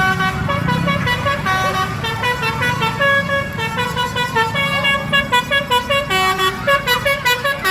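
A bus's telolet horn, a multi-trumpet air horn, plays a tune of short stepped notes. About five seconds in it quickens into a fast run of rapid toots, all over a low vehicle rumble.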